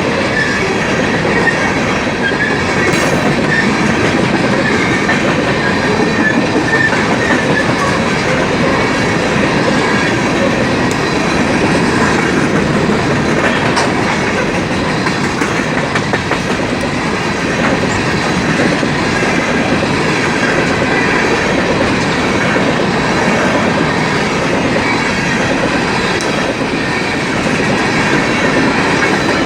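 Long BNSF coal train's cars rolling steadily past, steel wheels clicking and rumbling over the rail joints, loud and unbroken throughout.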